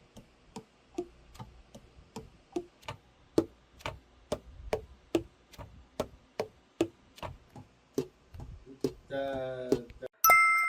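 Keys of a Yamaha YTS-275 tenor saxophone being worked, the pads closing on the tone holes in a steady series of clicks with a short hollow pop, about two or three a second. This is typical of checking key action and pad seating after an overhaul. Near the end a brief played note sounds on the horn.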